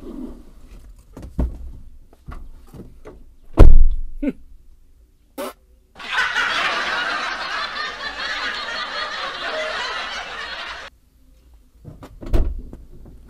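Canned audience laughter that starts abruptly about six seconds in and cuts off about five seconds later. Before it come scattered knocks and one loud thump.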